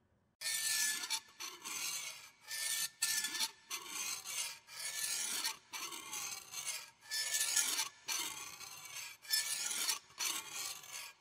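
A rasping, scratchy noise repeated in irregular bursts of under a second each, with short breaks between them.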